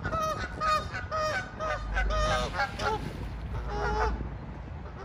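Canada geese honking: a quick run of short honks, about three a second, through the first three seconds, then a single longer honk about four seconds in.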